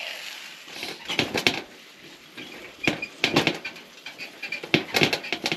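Pieces of venison sizzling in a small metal frying pan on a little wood stove. Three bursts of clicks and scrapes come about a second and a half apart as the meat is turned with a utensil against the pan.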